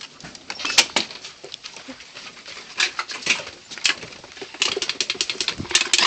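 Irregular clicks, taps and scuffs from a Chesapeake Bay retriever moving about on wooden porch boards right beside the phone, mixed with phone-handling noise.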